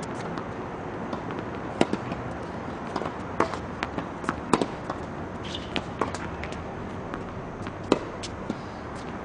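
Tennis rally on a hard court: rackets striking the ball and the ball bouncing on the court surface, a series of sharp pops and knocks at irregular intervals, the loudest about two, four and a half, and eight seconds in.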